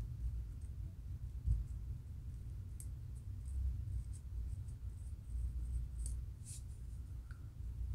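Thin metal pick scraping and lifting dry dandruff flakes off the scalp between locs: short, faint scratchy ticks, a few at a time, clustered about three seconds in and again about six seconds in, over a low steady rumble.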